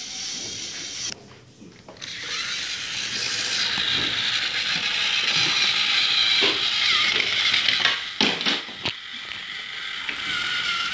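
Battery-powered toy train's motor and gears whirring steadily as it runs along plastic track, getting louder about two seconds in, with a few sharp clicks in the second half.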